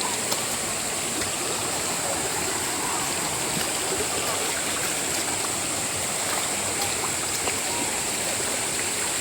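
Steady rush of running water, a stream or small waterfall, with a steady high-pitched hiss above it and a few faint ticks.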